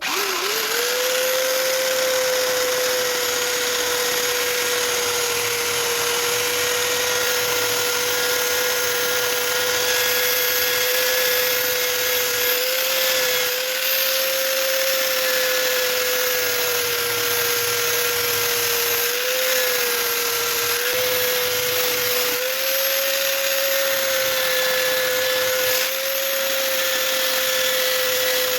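Electric belt sander starting up, its motor spinning up within half a second to a steady high whine and running on, the pitch dipping and recovering slightly a few times.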